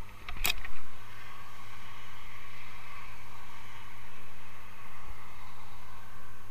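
Steady noise of motorway traffic going past, with a sharp knock about half a second in.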